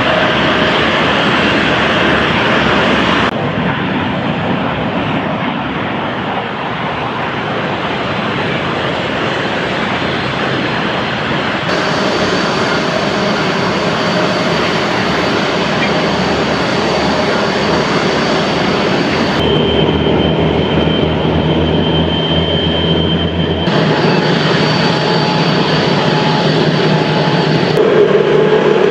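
Jet airliner engines running, a loud steady rush of noise with a thin high whine in some stretches. The sound cuts abruptly from one clip to the next every four to eight seconds.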